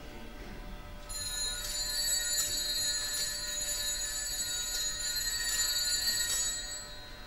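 Altar bells rung at the elevation of the host during the consecration: a bright, high ringing that starts about a second in and is shaken again about every 0.8 seconds for some six seconds.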